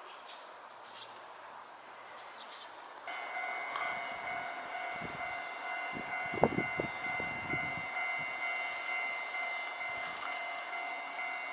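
A Hankai Tramway tram passing a level crossing. A steady high ringing tone starts suddenly about three seconds in and holds, and a run of low clunks from the wheels over the rail comes around the middle, the loudest a little past halfway.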